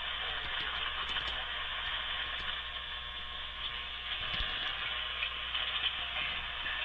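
Radio receiver on a weak, iffy signal giving out a steady hiss of static.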